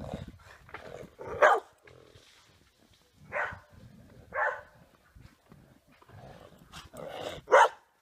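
Dog barking, a handful of short separate barks spread out with pauses between them, the loudest near the end.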